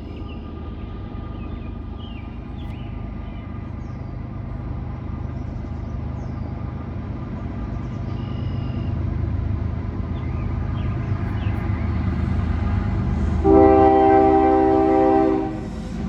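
Approaching CSX freight train's GE diesel-electric locomotives rumbling, growing steadily louder, then one loud multi-note chord on the lead locomotive's air horn lasting about two seconds near the end, cut off sharply.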